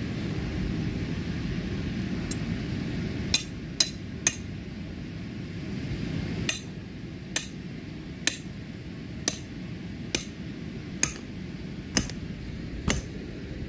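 A hammer strikes a metal ground stake, driving it into turf. There are three quick clinks about three seconds in, then from about the middle a steady run of ringing strikes a little under a second apart.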